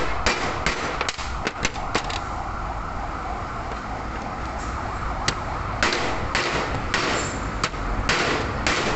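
Metal hammer blows driving a 17 mm socket used as a drift, knocking an oil seal and bearing out of a steering rack housing. There is a run of quick strikes in the first two seconds, a pause, then a single strike and a further cluster of strikes in the last three seconds. The part is stiff to drive out because a bearing sits behind the seal.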